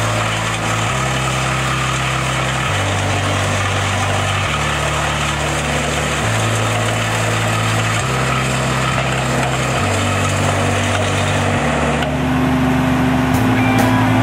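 Engine of a Carlton 2012 twelve-inch disk wood chipper running steadily at working speed. About twelve seconds in the sound grows a little louder and a steady hum comes in.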